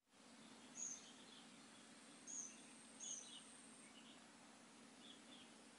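Faint outdoor ambience with a steady low hum and short, high bird chirps: three clearer ones in the first three seconds, and weaker ones after.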